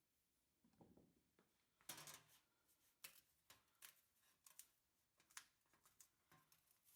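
Near silence with faint, irregular clicks and light scraping.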